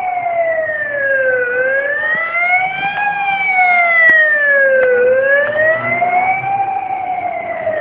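Ambulance siren wailing, its pitch sliding slowly up and down, one full rise and fall about every three and a half seconds.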